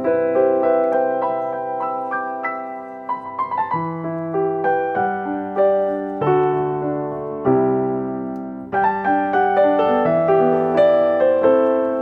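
Background music: a gentle solo piano melody with bass notes.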